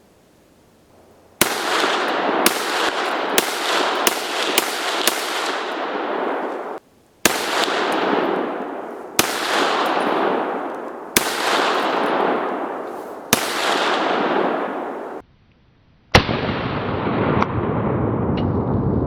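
Johnson semi-automatic rifle in .30-06 being fired: six shots in quick succession, then four more shots about two seconds apart, each crack ringing out in a long echo. Near the end comes another sharp crack, then a steady low rush of noise.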